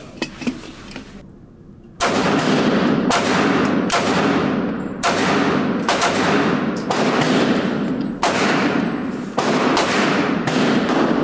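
CZ SP-01 pistol firing a rapid string of shots, roughly one every half second to a second, starting about two seconds in. Each shot rings on in the echo of the indoor range.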